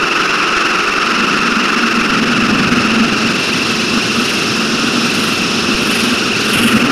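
Electronic noise composition: a dense, steady droning hiss with a low hum underneath, swelling slightly near the end.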